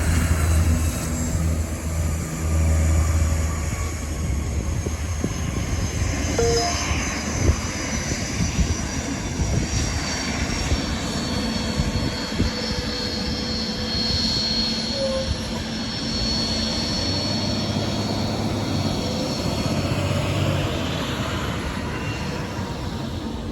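Private jet's engines running: a high turbine whine, slowly falling in pitch, over a low rumble, easing off slightly near the end.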